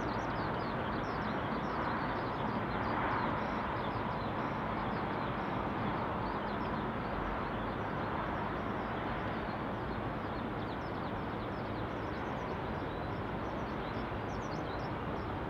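Outdoor city ambience: a steady hum of distant traffic, with many small birds chirping throughout.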